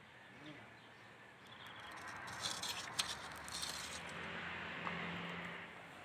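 Faint outdoor countryside ambience: a steady hiss of wind and rustling vegetation, with a few brief clicks and chirps in the middle and a faint low hum toward the end.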